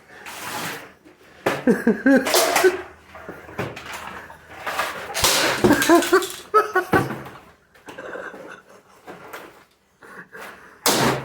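Several bursts of people's voices laughing and exclaiming, with no clear words, in a small room.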